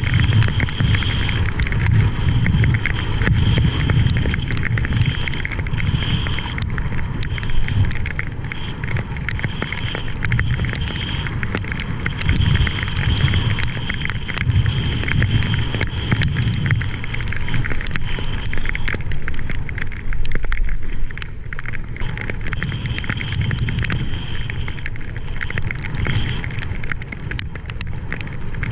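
Wind rushing over an action camera's microphone while riding a wing foil board over the water: a low rumbling rush that swells and eases, scattered crackles, and a thin high whistle that fades in and out.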